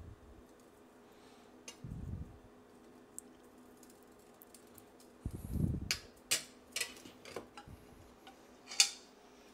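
Kitchenware being handled: a few sharp clinks and taps from about six seconds in, after two dull thumps, over a faint steady hum.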